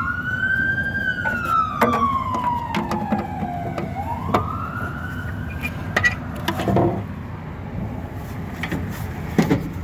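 An emergency vehicle siren wailing in slow rising and falling sweeps: it peaks about a second in, drops, climbs again and fades out about six seconds in. Scattered light clicks and knocks sound over it.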